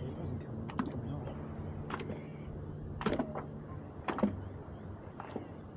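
A hooked luderick being handled and unhooked: about half a dozen sharp knocks and slaps scattered through, the loudest two about three and four seconds in, over a low steady hum.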